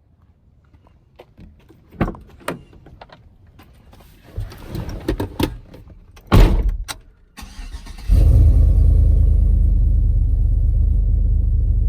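A few clicks and knocks and a heavy thump about six seconds in, then about eight seconds in the truck's boosted 6.0 V8 starts and settles into a loud, steady idle.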